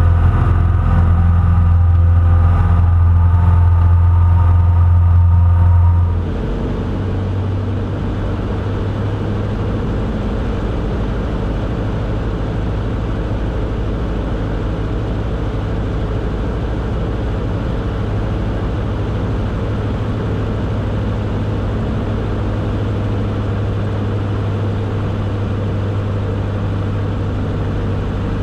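Cessna 140 floatplane's engine and propeller running steadily at power on the water. About six seconds in the sound changes abruptly from the outside of the plane, with a clear steady hum and overtones, to inside the cabin, a little quieter, with more rushing noise.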